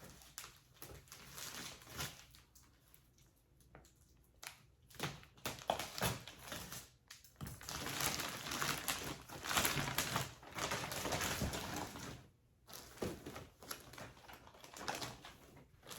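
Sealed packaging of compressed throw pillows being handled and pulled open, in irregular crackles and rustles. It is loudest around the middle.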